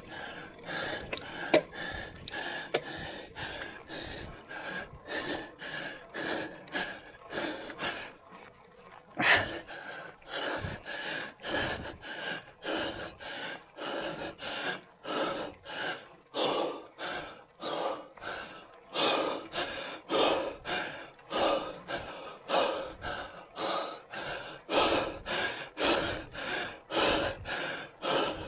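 A cyclist breathing hard and fast while climbing a steep grade, a steady rhythm of loud puffing breaths slightly under two a second, heavier in the second half.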